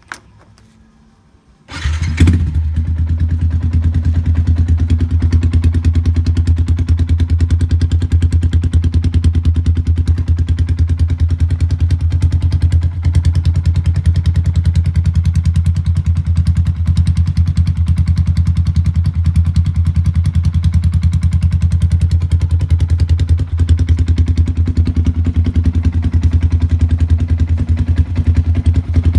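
Yamaha Sniper 150's single-cylinder four-stroke engine, breathing through a VMAX racing exhaust pipe, starts up about two seconds in and then idles steadily with a deep, even exhaust pulse.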